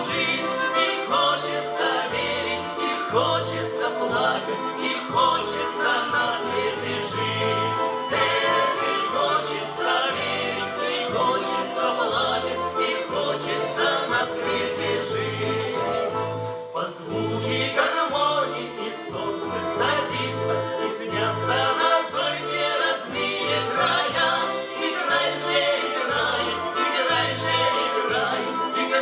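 Russian folk vocal ensemble singing in chorus to garmon (button accordion) accompaniment, the bass keeping a steady, regular beat.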